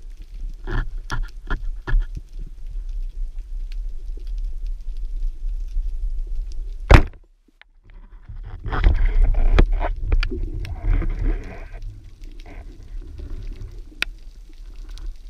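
Band-powered speargun fired underwater, heard through an action camera's housing: one sharp crack of the shot about seven seconds in, the loudest sound, then a short gap of near silence and about three seconds of churning, bubbling noise. A few short clicks come earlier, over a steady low underwater rumble.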